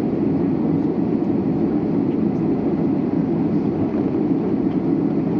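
Steady, even cabin noise inside an Airbus A319 airliner, a dense low rumble with no change in level.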